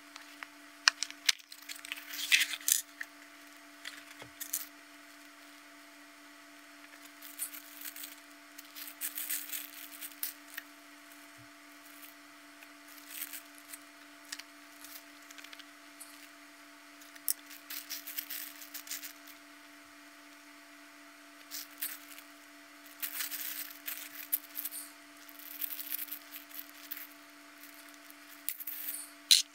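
Small plastic puzzle parts being handled and sorted, with irregular clicks, taps and rustles over a steady low hum.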